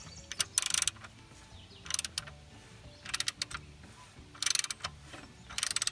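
Hand socket ratchet clicking in five short bursts of rapid pawl clicks, about one burst a second, as it is swung back and forth on the crankshaft bolt to turn a Volkswagen/Audi 1.8T engine over by hand with a new timing belt fitted.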